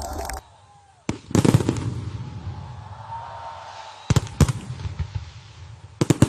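Aerial fireworks shells bursting in loud, sharp bangs: one about a second in, a quick cluster just after, two more around four seconds, and another burst of bangs near the end, with crackling between. Just before the first bang, a steady loud noise cuts off suddenly.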